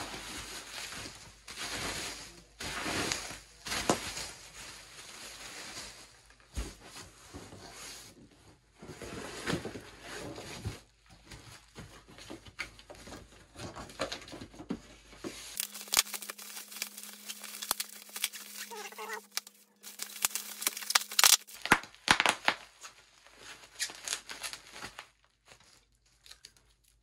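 Cardboard box and packing material rustling and scraping as an axe head is dug out, then bubble wrap crinkling and tearing as it is unwrapped, with a cluster of sharp crackles over the second half.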